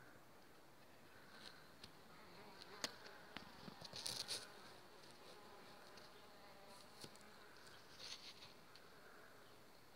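A mason bee buzzing faintly in flight around the nesting tubes of a bee hotel, a low hum that wavers up and down. A couple of sharp clicks and two brief rustles, about four and eight seconds in, are louder than the hum.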